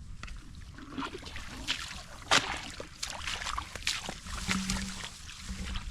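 Water splashing and sloshing in short irregular bursts, with one louder splash about two and a half seconds in.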